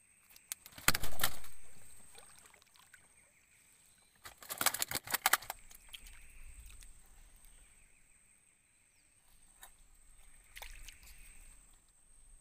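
Knocking and rattling in a small fishing boat: a loud cluster of knocks about a second in, then a longer run of rapid clicks and knocks around four to five seconds in, with a few faint single knocks near the end.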